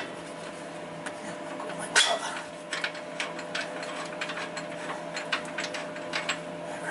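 Hand socket ratchet clicking as a bolt on a truck's front axle housing is worked, in a run of small irregular clicks. Two sharper metal knocks come at the start and about two seconds in, over a faint steady hum.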